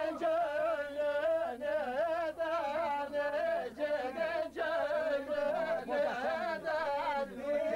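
A man singing a Turkish folk song unaccompanied, in a high voice full of wavering ornaments.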